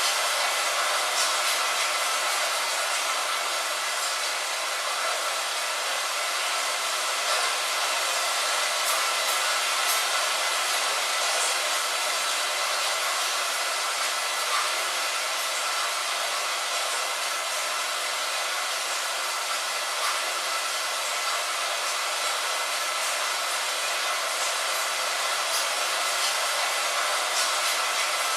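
Steady hiss of light rain on a window, even throughout, with a few faint drop ticks here and there.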